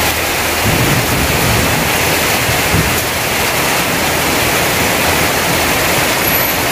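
Heavy monsoon-style downpour falling on plastic tarpaulins and stall roofs, with runoff pouring off the roof edges: a steady, loud hiss of rain.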